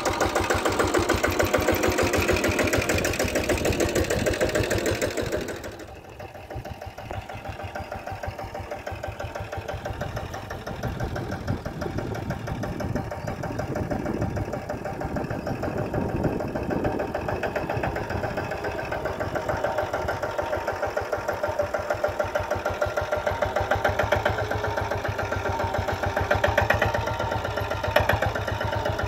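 A small farm tractor's engine running with a rapid, even chugging beat as it drives over a ploughed field. It drops suddenly about six seconds in, then grows louder again near the end as the tractor comes closer.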